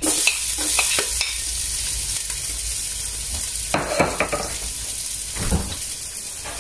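Chopped garlic dropped into hot oil in a stainless steel pot, starting to sizzle suddenly and then frying steadily, easing off slightly. A few short knocks and scrapes of the plate and utensil against the pot.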